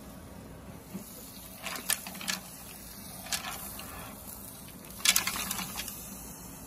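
An automatic wok machine runs with a low steady hum while green-lipped mussels in their shells clatter against the turning pan in short bursts: a few in the first two seconds, one near the middle, and the loudest cluster a little after five seconds in.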